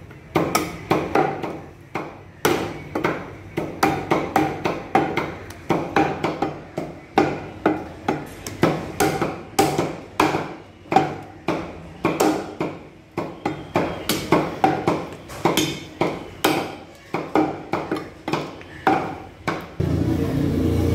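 Heavy butcher's cleaver chopping goat meat and bone on a wooden chopping block: sharp, repeated chops, about two to three a second. Near the end the chopping stops and a steady low drone takes over.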